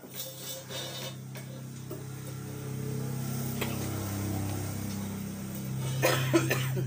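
Steady low hum of a machine motor running, with faint water sounds as a steel knife blade is dipped into a water tank. A short, louder clatter near the end.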